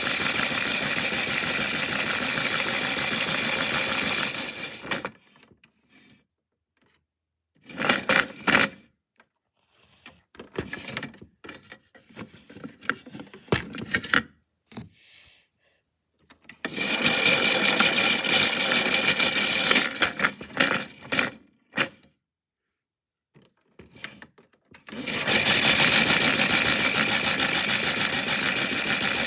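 Washing machine running with a big rock inside, making a loud steady rattling din. It cuts out after about five seconds, comes back in short bursts and scattered knocks, runs loud again for a few seconds past the middle, stops, and starts up again near the end.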